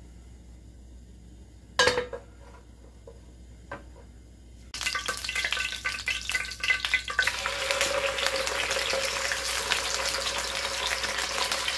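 A metal frying pan is set down on a portable gas stove with one sharp clank. Shortly after the middle, oil in the pan starts sizzling, and about two and a half seconds later it grows louder and steady as a flatfish frying in the oil sizzles.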